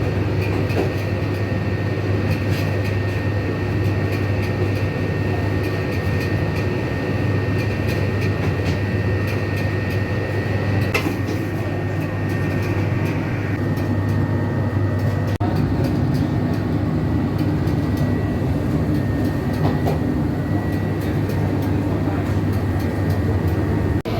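Bakery machinery running steadily: a constant low hum with a faint high whine and scattered clicks and knocks.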